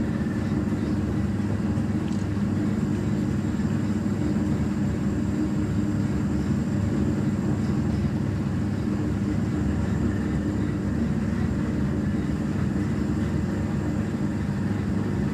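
Steady mechanical drone of bowling-alley machinery behind the pins, a constant low hum with no pin crashes or knocks.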